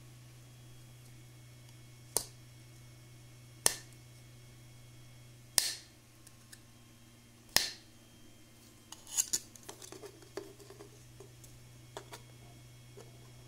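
A thin-walled 3D-printed PLA plastic ring squeezed and flexed by hand, its wall popping with four sharp clicks about one and a half to two seconds apart, then a flurry of small crackles and a few faint ticks.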